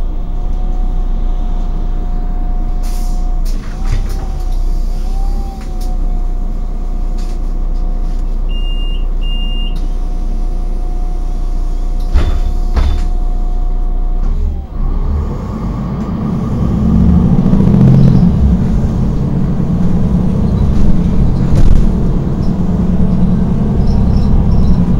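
City bus heard from inside, its engine idling with a steady whine, then revving up and running louder as the bus pulls away about halfway through. Two short high beeps sound near the middle of the idle.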